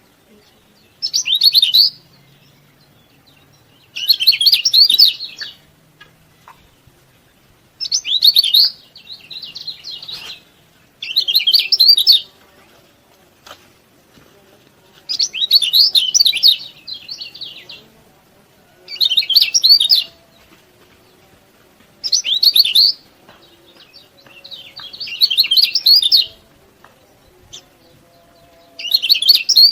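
Kecial kuning white-eye singing in bursts of rapid, high chirping, each about a second long, repeating roughly every three seconds.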